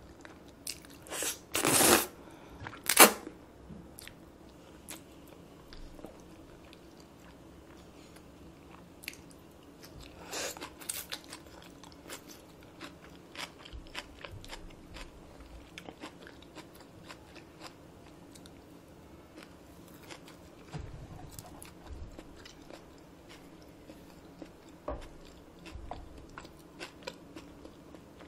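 Close-miked eating of spicy Paldo Bibimmyeon noodles: two loud noodle slurps in the first few seconds, then quieter chewing with many small wet clicks, and another short run of louder eating sounds about ten seconds in.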